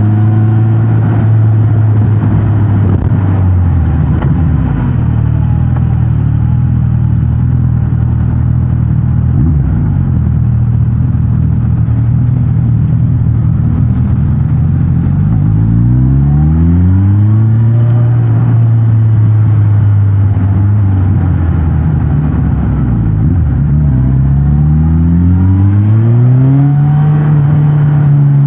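Suzuki GSX-S1000GT's inline-four engine through its stock exhaust while riding: a steady run, then twice the pitch climbs as the bike accelerates and levels off again.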